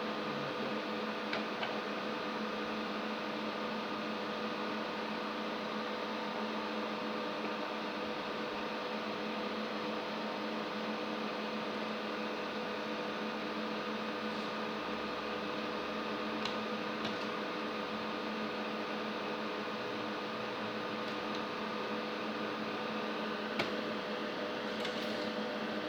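Steady machine hum with several fixed tones and a hiss of air noise, unchanging throughout, with a few light clicks, the sharpest about three-quarters of the way through.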